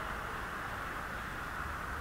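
Steady background noise of an indoor ice rink: an even hiss with a low hum beneath it, and no distinct hits or shouts.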